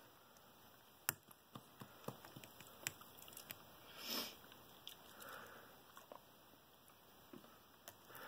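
Faint, scattered small clicks and scratches of a lock pick working the pin stack of a large Master Lock No. 19 padlock. A brief soft hiss comes about four seconds in.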